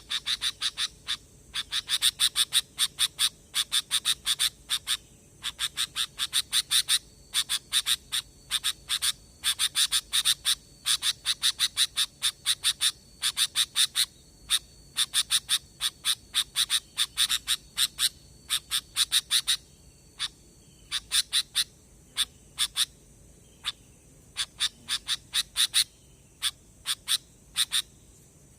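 Sooty-headed bulbul (kutilang) chattering: quick runs of short, sharp chirps, several a second, broken by brief pauses.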